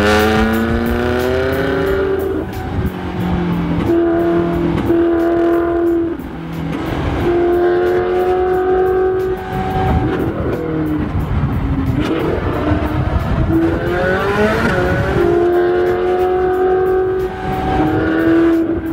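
Ferrari California V8 running through an aftermarket Fi valved exhaust, accelerating hard. The engine note climbs and drops back at each upshift, several times over.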